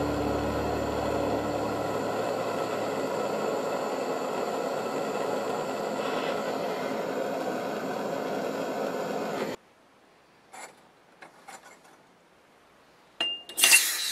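Steady hiss of a jeweller's gas torch flame heating a silver piece on a soldering block to solder jump rings to it. The torch cuts off suddenly about ten seconds in, followed by a few faint clicks and a brief loud noise near the end.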